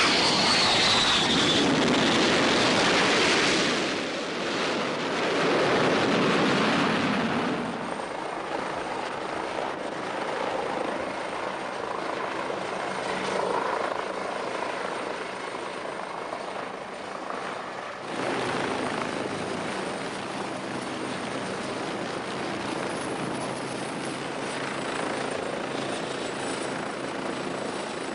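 A jet airliner landing: loud engine roar with a falling whine for the first several seconds. Then a Royal Navy Westland Wasp helicopter flying, its rotor and turbine running steadily, louder again from about two-thirds of the way through.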